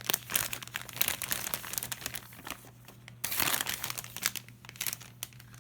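Plastic Lego polybag crinkling and crackling irregularly as it is handled, with a few louder crinkly flurries a little past the middle.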